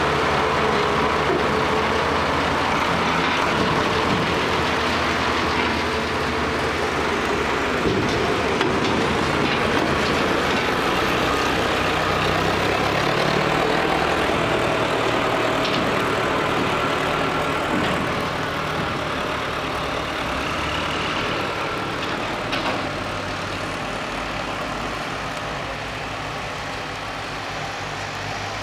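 Schlüter tractor diesel engines running steadily, getting gradually quieter over the second half.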